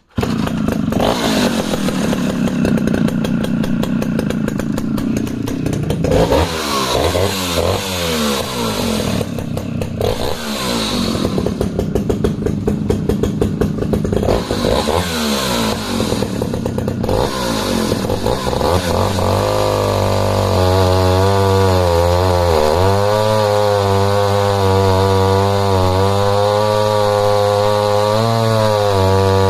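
Jonsered XF 110 cc two-stroke chainsaw running at full throttle, then cutting through a log, its revs dipping and recovering several times. Then it settles to a lower, wavering pitch under steady load. The saw has never been used before, and the owner finds it leaning out halfway through the log.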